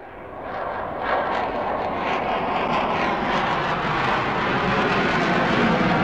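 Airplane engine sound effect: a steady rushing noise that fades in over about the first second and then holds.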